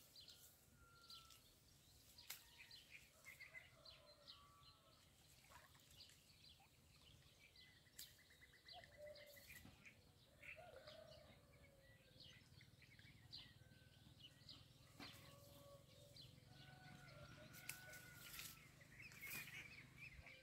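Faint outdoor quiet with scattered bird calls: short whistled notes and chirps, a brief rapid trill about eight seconds in, and a few small clicks.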